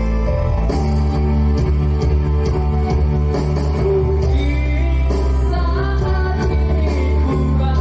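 A man singing into a microphone over recorded backing music with bass and a steady beat, the melody line coming in about halfway through.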